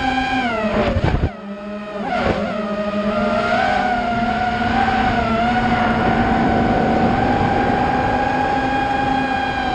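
Brushless motors and propellers of an ImpulseRC Alien FPV quadcopter whining in flight, heard from its onboard camera. The pitch drops and the sound dips as the throttle is cut about a second in, then it climbs back to a steady whine that wavers slightly with throttle.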